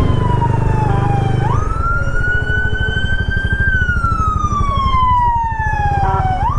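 Emergency vehicle siren on a slow wail: the pitch jumps up, climbs for about two seconds, falls for about two and a half, then jumps up again near the end. An engine idles underneath with a low, even throb.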